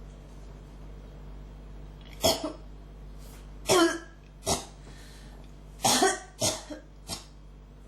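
A person in a coughing fit: about nine hard coughs in quick clusters, starting about two seconds in, over a faint steady hum.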